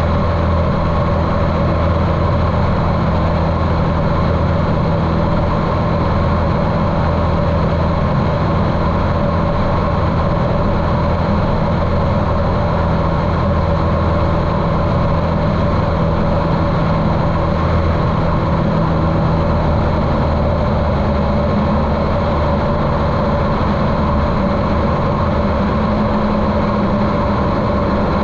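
The Cessna 150L's Continental O-200 four-cylinder air-cooled engine and propeller running steadily, sounding muffled through the camera's waterproof case. The low engine tone shifts slightly about two-thirds of the way through.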